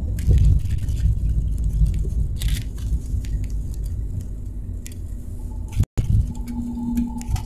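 Low rumble heard inside the cabin of a Boeing 737 MAX 8 rolling out on the runway after landing, slowly fading as the jet slows, with light clicks and rattles from the cabin. A quieter steady hum is left near the end.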